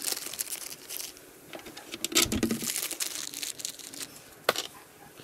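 Small clear plastic hardware bag crinkling as it is handled and opened, with small clicks from the bolts and nuts inside and one sharp click near the end.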